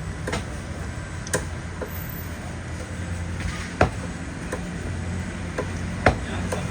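A knife chopping through a red snapper onto a cutting board: sharp, irregular knocks, the loudest about four and six seconds in, over a steady low hum.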